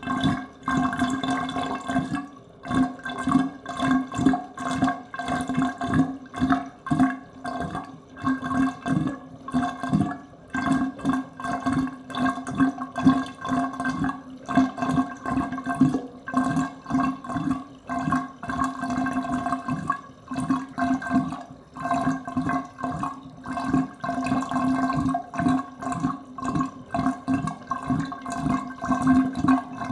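Water draining from a bathtub, gurgling down the drain in quick, uneven gulps with a hollow, pitched tone that holds steady.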